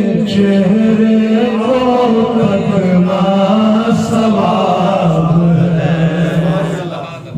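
A man singing a naat, an Urdu devotional poem, solo into a microphone, drawing out long held notes that bend slowly. He pauses briefly near the end.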